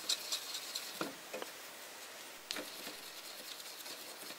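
Watercolour brush scrubbing and tapping in a paint pan in a metal paint box while dissolving paint: faint small taps and rubs, with a quick run of ticks at the start and a few single ticks after.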